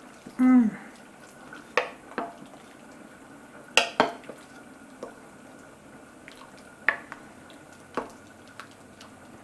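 A wooden spoon stirs a sauce with a fresh cornstarch slurry in a slow cooker. It knocks now and then against the crock, in scattered sharp knocks, the loudest pair about four seconds in.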